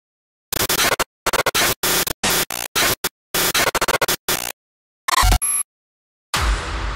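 Glitch sound effects: choppy bursts of harsh static, chopped on and off by hard cuts of silence, then a short burst with a deep low hit. Near the end a continuous music bed with heavy bass comes in.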